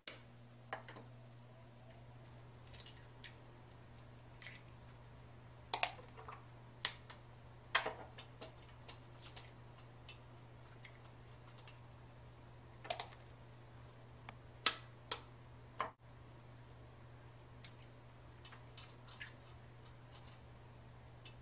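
Eggs being cracked: scattered sharp taps and clicks, the loudest in two clusters, over a steady low hum.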